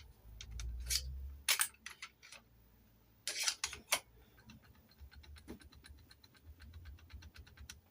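Key blank being turned and rocked in a Chubb detector lever lock, making metallic clicks. A few sharp clicks are followed about halfway through by a run of quick, fine ticks as the blank works against the levers.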